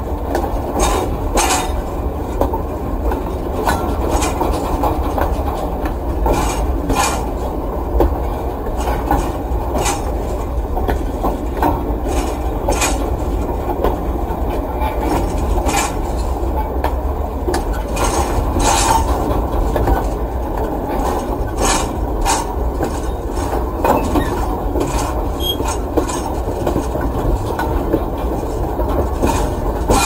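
Freight train cars rolling along the track: a steady rumble with irregular metallic knocks and metal scraping.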